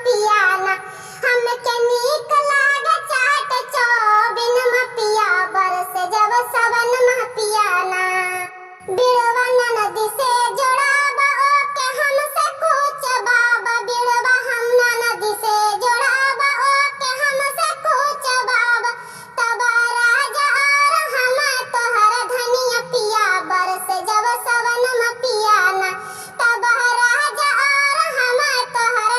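High-pitched, child-like singing voice performing a kajri folk song, with only light backing under it. The voice pauses briefly about nine seconds in.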